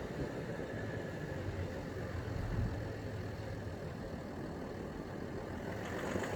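Audi 2.7 TDI V6 diesel engine running steadily, a low even drone; the owner reports that this engine knocks under load.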